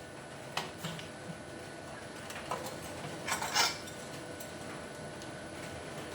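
A few light metallic clinks and knocks of steel parts being handled, with the loudest quick cluster about three and a half seconds in.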